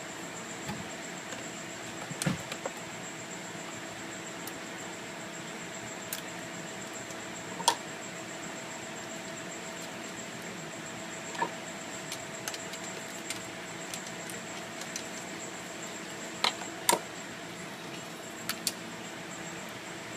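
Scattered light clicks and knocks from tools and parts being handled during work on a Ford 6.0 Powerstroke fuel system, over a steady hum. The sharpest knock comes about a third of the way in, and a close pair comes near the end.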